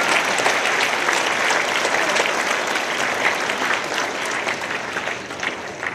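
Audience applauding, a dense steady clatter of clapping that eases off near the end.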